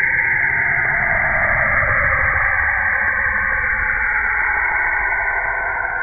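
NASA space sound, spacecraft radio data turned into audio: a steady, static-like hiss over a low rumble, with a band inside it slowly falling in pitch and turning upward again near the end.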